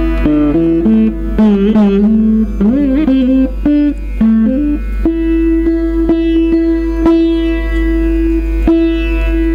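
Saraswati veena playing a Carnatic melody, its plucked notes sliding and wavering in gamakas. About five seconds in it settles on one long held note, with sharp strokes about twice a second. Mridangam strokes sound along with it.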